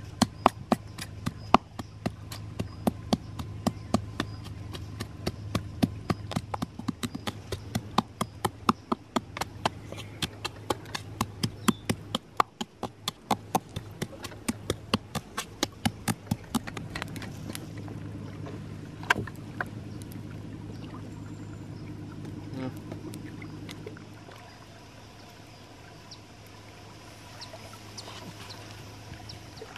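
Wooden pestle pounding chillies and garlic in a coconut-shell mortar, about three knocks a second, then slowing to a few scattered knocks after about seventeen seconds.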